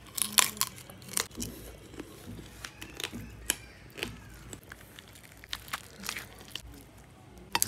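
Shell of a big curried prawn crackling and snapping as it is bitten and pulled apart by hand. The sharp irregular cracks are loudest about half a second in and again just before the end.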